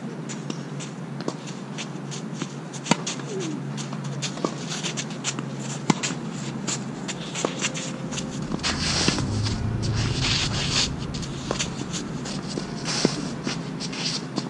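Tennis rally: sharp pops of racket strings hitting the ball every few seconds, the loudest about 3, 6 and 13 seconds in. Between the hits, shoes shuffle and scuff on the court, and a rushing noise swells for a couple of seconds in the middle.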